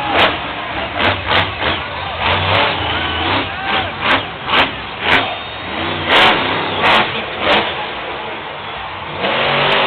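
Grinder monster truck's engine revving hard in a string of sharp throttle bursts, about a dozen in the first eight seconds, then running more steadily before surging louder near the end.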